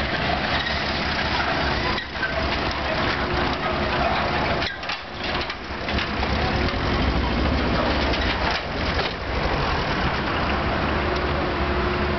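A motor vehicle engine running steadily with a low drone.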